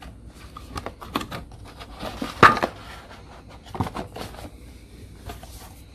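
Clear plastic box lid and cardboard watch box being handled and opened: a string of irregular clicks and rustles, the loudest about two and a half seconds in.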